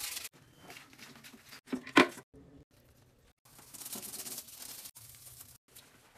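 Toilet brush scrubbing a porcelain toilet bowl and rim, the bristles scraping the ceramic in bursts, with one louder knock about two seconds in.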